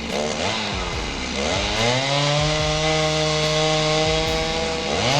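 Chainsaw engine revving up and down, then held steady at high speed from about two seconds in, with a brief drop in pitch near the end.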